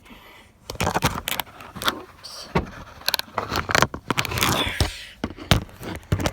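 Child car seat being pushed down and shifted on the car's back seat: a busy run of knocks, clicks and scrapes, starting about a second in.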